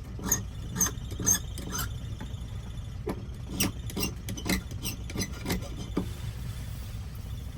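Short, squeaky metal clicks, about two a second, in two runs with a pause between, from metal key and lock parts being worked by hand during key fitting.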